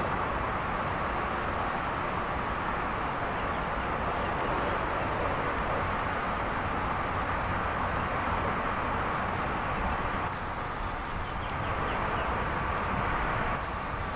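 Steady outdoor noise with a low rumble, and a small bird giving a short high chirp about twice a second over it.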